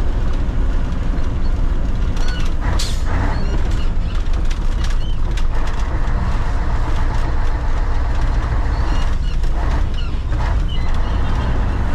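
Mitsubishi Fuso truck's twin-turbo 8DC9 V8 diesel engine running steadily under load, hauling about 30 tons of cement, heard from inside the cab. A few short knocks and rattles sound over the drone.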